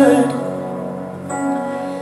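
Live worship band music in a soft pause between sung lines: the voices trail off early and a quiet chord is held until the singing comes back in.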